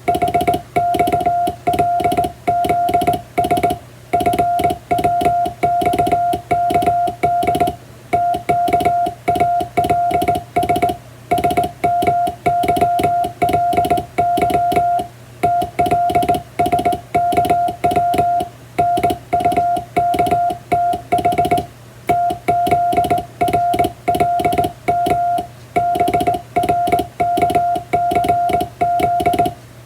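Morse code sent by hand on a straight (up-and-down) telegraph key: a steady beep keyed on and off in dots and dashes, grouped into letters and words with short pauses, spelling out a practice telegram in international Morse. The key's contacts click sharply on many of the strokes.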